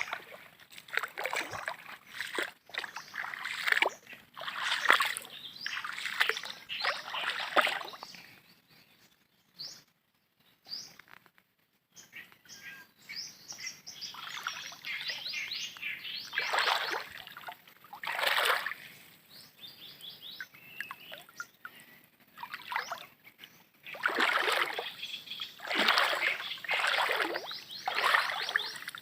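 Water splashing and sloshing in uneven swishes, with a short lull about ten seconds in.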